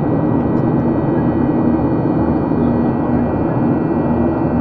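Boeing 737-800 cabin noise heard from a window seat beside the CFM56 engine as the airliner climbs out after takeoff: a steady rush of air and engine drone with an even hum through it.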